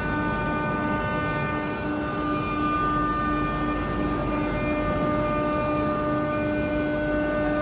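Six-sided CNC panel drilling machine running: a steady machine whine of several held tones over a constant rushing noise.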